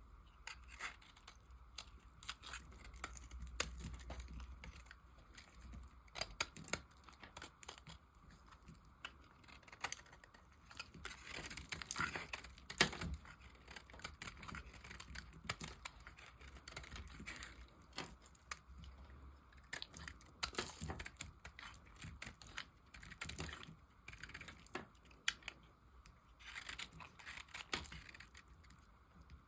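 A blade cutting and carving dry soap: irregular crisp scrapes, crackles and snaps as the knife shaves and breaks off pieces, the loudest snap about halfway through.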